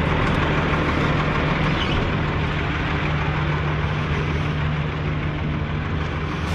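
Peterbilt dump truck's diesel engine idling steadily.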